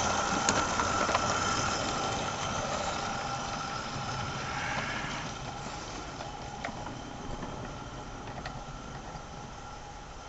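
Merlin Monarch 16mm-scale live-steam garden-railway locomotive running with a train of wagons, its steady sound fading gradually as it draws away, with a few faint clicks.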